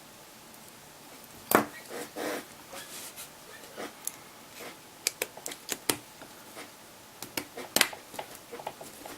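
Small plastic and metal phone parts and tools being handled on a work surface: irregular sharp clicks and taps, with two louder knocks, one about a second and a half in and one near the end.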